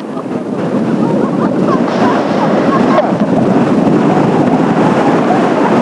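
Kawasaki T-4 jets of the Blue Impulse running overhead, their roar mixed with strong gusty wind buffeting the microphone; the noise swells over the first second and then holds steady.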